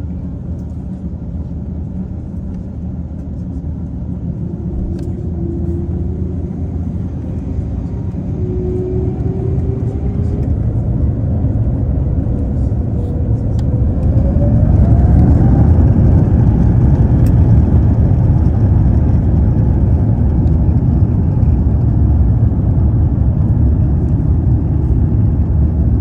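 Airbus A350-900's Rolls-Royce Trent XWB turbofan engines spooling up to takeoff thrust, heard inside the cabin. A whine climbs steadily in pitch while the engine noise grows louder over about fifteen seconds, then holds steady at full power as the takeoff roll begins.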